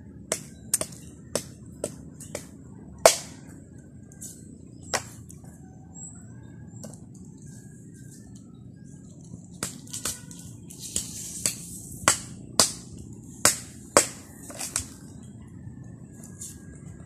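Sharp snapping cracks as coconut leaflets are stripped off their midribs with a small blade to make tingting broom sticks, one stroke at a time. They come in two irregular runs with a pause of a few seconds in the middle.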